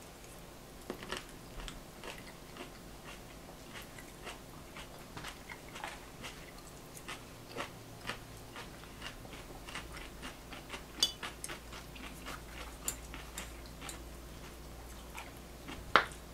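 Someone eating a meal: chewing, with many small clicks of chopsticks against stainless-steel bowls and plates, the sharpest a little past the middle and again near the end.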